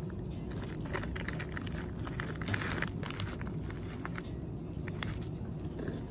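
A plastic chip bag being handled and crinkled, a few scattered crackles with a short cluster about halfway, over a steady low rumble.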